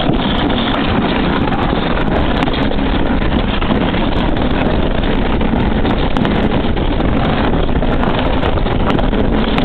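Summer bobsleigh sled sliding fast down a winding track's trough: a steady loud rushing rumble of the sled's base on the track, with wind buffeting the microphone.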